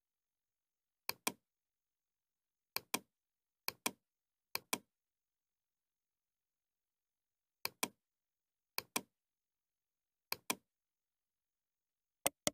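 Computer mouse clicking eight times at uneven intervals. Each click is a quick pair of sharp ticks as the button goes down and comes back up.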